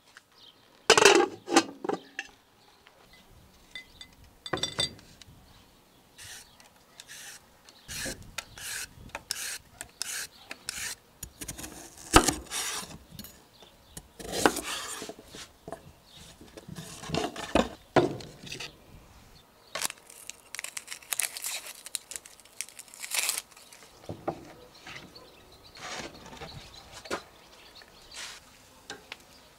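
A chef's knife cutting carrots on a wooden cutting board: irregular knocks of the blade through the vegetable onto the wood, with scraping and rubbing as the pieces and utensils are handled. A few louder knocks come about a second in and again near the middle.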